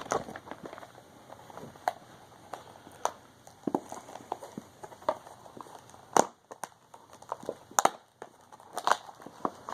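Blind-box packaging being handled: irregular crinkling of a plastic bag and cardboard, with scattered sharp clicks and snaps, the loudest a little past the middle.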